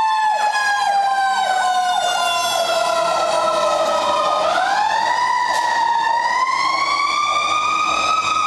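Fire truck sirens as the ladder truck passes close by: one loud wail falls slowly in pitch for about four seconds, then winds back up. A second siren sweeps down and up quickly, about twice a second, underneath it.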